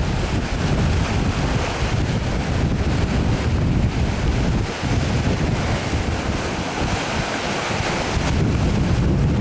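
Wind buffeting the microphone in uneven gusts, over a steady wash of water.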